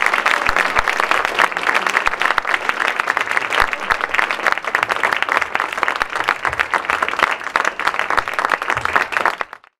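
Audience applauding, a dense steady patter of many hands clapping that cuts off suddenly near the end.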